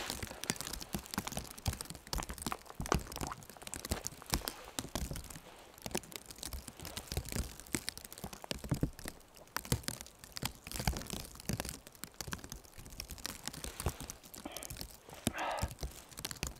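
Irregular crunching and rustling: a person shifting about and handling gear in deep snow, with scattered soft crunches and clicks and no steady rhythm.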